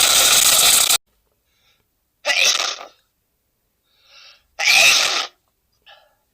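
A man sneezing over and over: a long, loud sneeze that ends about a second in, then two more loud sneezes about two seconds apart, with short, quieter sounds between them.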